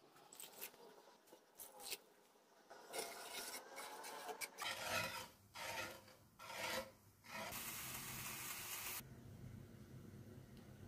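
Water poured from a cup onto sugar in a nonstick pan at first, then a wire whisk stirring the sugar and water for syrup: rough scraping strokes with short pauses, then a couple of seconds of continuous whisking before it eases off.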